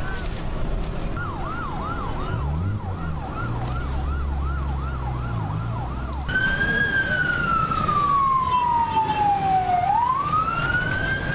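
Emergency vehicle sirens: a fast yelping siren sweeping up and down about three times a second, then, after an abrupt change, a slow wailing siren that falls in pitch over several seconds and rises again near the end. A low steady hum sits under the yelp for a few seconds.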